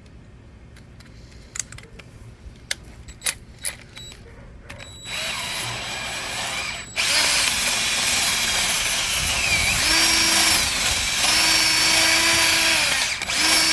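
A rotary wire brush on a power tool scouring rust off the car's rotted steel rear tail panel. A few light handling clicks come first. The tool starts about five seconds in, stops briefly, then runs harder with its motor pitch shifting until just before the end.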